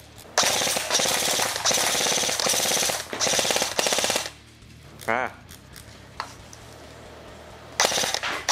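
Airsoft G36 rifle firing full-auto bursts of BBs at a graphics card target: a long burst of about three seconds, a short second burst, then another burst starting near the end.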